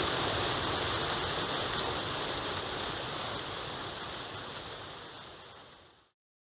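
Waterfall rushing: a steady roar of falling water that fades out over the last couple of seconds and cuts to silence about six seconds in.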